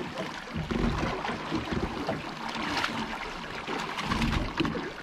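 River water splashing and slapping against the side of a drift boat as a rainbow trout is landed in a net alongside, with irregular sharp splashes over a steady wash of moving water.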